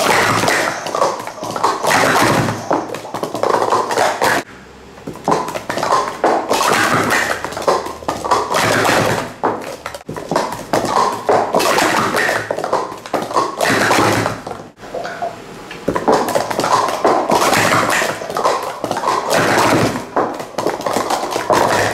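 Speed Stacks plastic sport-stacking cups being stacked up and down at speed: a fast clatter of cups clacking together and tapping on the stacking mat. The clatter breaks off briefly about four seconds in and again near fifteen seconds in.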